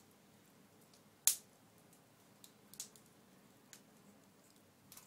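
Wood fire crackling under a pan of roasting chestnuts: a few sharp, scattered pops, the loudest about a second in.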